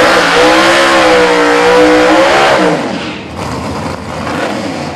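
Camaro drag car's V8 held at high revs during a burnout, with tyre noise underneath. About three seconds in, the revs are cut and the engine drops to a lower, rougher running.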